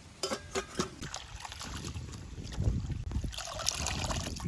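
A few sharp clinks of stainless-steel plates, then water poured into a steel bowl of leafy greens from about three seconds in, splashing over the leaves as they are rinsed.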